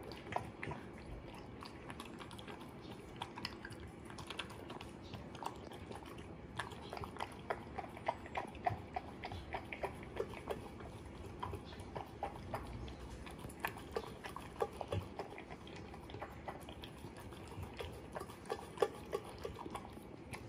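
A small dog eating dog food from a stainless steel bowl: wet chewing and lapping, with many small, irregular clicks.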